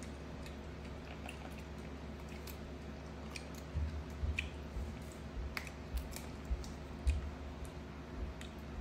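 A baby macaque chewing and biting small green fruits: soft wet mouth sounds and small clicks. Low bumps and sharper clicks come in the second half, over a steady low hum.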